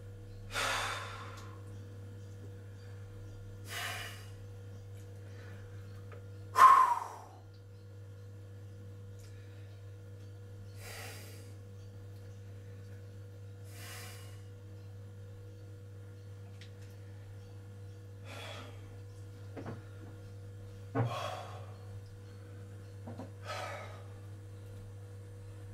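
A man's forceful breaths while sitting in 0.5 °C ice water: about eight short, sharp breaths a few seconds apart, the loudest about seven seconds in. A steady low hum runs underneath.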